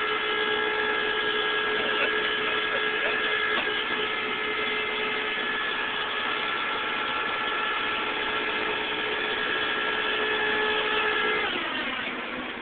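Tow truck's winch running under load with a steady whine as it pulls the car up onto the truck, then winding down with a falling pitch near the end.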